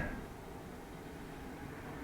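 Faint, steady background rumble and hiss with no distinct events.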